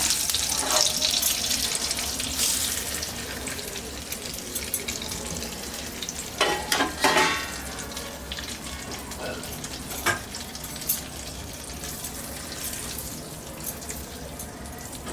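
Ghee sizzling in a pan as wheat flour is stirred and roasted in it on a low flame; the hiss is loudest at first and dies down over the first few seconds. A few short clicks and scrapes come about six to seven seconds in and again at ten seconds.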